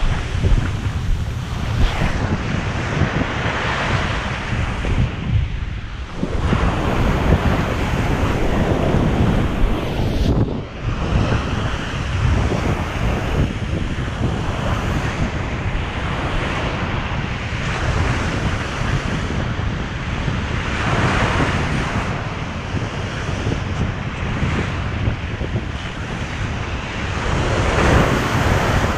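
Ocean surf washing onto the beach, swelling every few seconds, with strong wind rumbling on the microphone.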